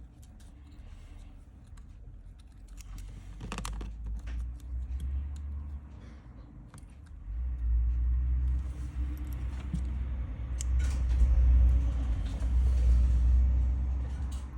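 Small clicks and taps of tools and parts handled on a phone during reassembly, with a low rumble that swells and grows loudest in the second half.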